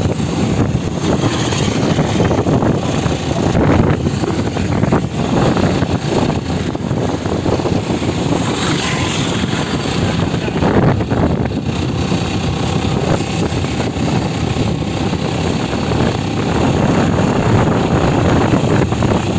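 Steady engine and road noise of a moving vehicle, heard from on board, with air rushing over the microphone.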